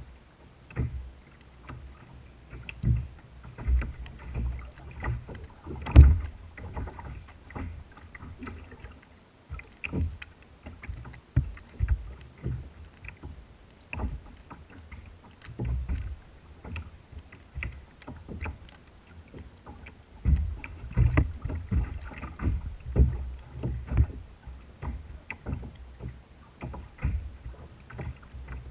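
Small waves slapping against a kayak's hull: irregular low thumps and splashes, with one sharp knock about six seconds in.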